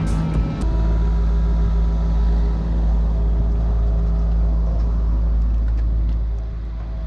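Engine of heavy asphalt-paving machinery running steadily with a low, even hum. Music stops about half a second in.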